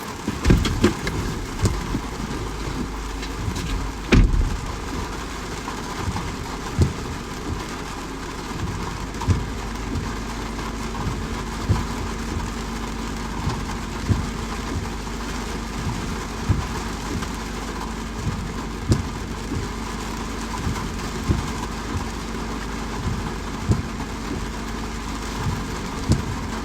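Steady rain, with heavy drops or drips landing close by as dull taps every second or two, a few louder ones near the start. A low steady hum joins about ten seconds in.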